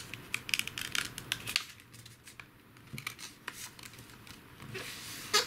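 A sheet of paper being folded and pressed flat by hand to make a paper airplane: crinkling and rubbing of paper, busiest in the first second and a half, quieter in the middle, then a rustle near the end.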